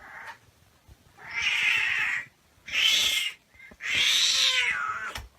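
Domestic cat meowing loudly: a short faint call, then three long, drawn-out meows about a second apart.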